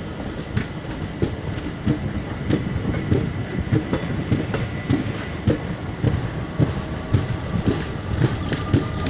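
Train wheels clattering over rail joints as a train runs through, with a steady rumble under the knocks. A thin squeal comes in near the end.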